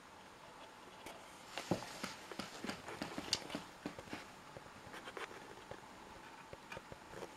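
Irregular small clicks and knocks of handling noise close to the microphone, loudest in the middle, over a faint steady hum from the lit twin-tube 20 W fluorescent fixture.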